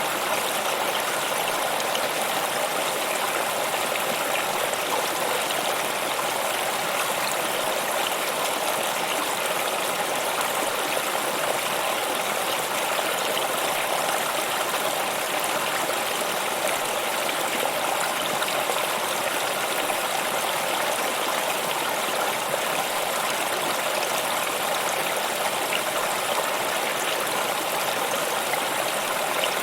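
A stream of water running steadily, an even continuous rush that does not change.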